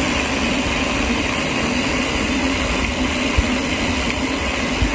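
Steady rushing noise of a bicycle coasting fast downhill: wind across the handlebar-mounted microphone and tyres running on a coarse chip-seal road.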